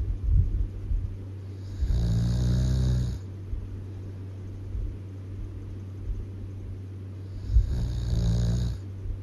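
Loud snoring: two long snores about six seconds apart, each lasting just over a second, with a steady low hum underneath.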